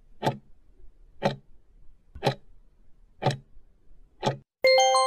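Countdown timer sound effect: five clock ticks, one a second, then a bright multi-note chime about four and a half seconds in, marking time up for the question.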